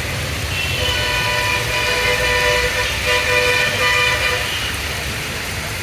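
Vehicle horns sounding in long, steady blasts, with a short break about three seconds in, over the constant low rumble of road traffic.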